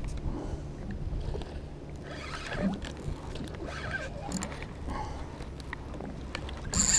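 Fishing kayak on the water: a steady low rumble of water and wind against the hull, with scattered light knocks and rustles, and a short sharp noisy burst near the end.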